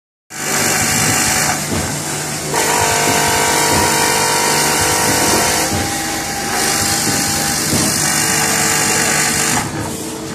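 Tea bag packing machine running: a steady mechanical hum under a high hiss that swells and fades every few seconds, with a whine for a few seconds in the middle.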